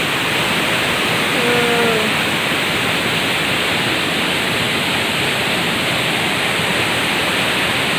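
Steady rush of a waterfall's water pouring into its pool.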